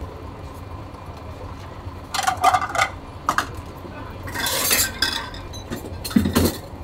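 Dishes and cutlery clinking and clattering in short bursts, with a brief hiss about halfway through.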